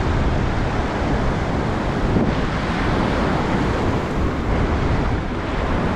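Steady wash of small surf breaking and running up a sand beach, with wind buffeting the microphone.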